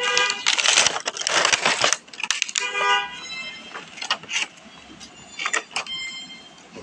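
Cardboard toy box and plastic blister tray being handled and slid apart: loud rustling and scraping for the first two seconds, then short squeaks of plastic rubbing, about three seconds in and again near the end, among lighter taps and crinkles.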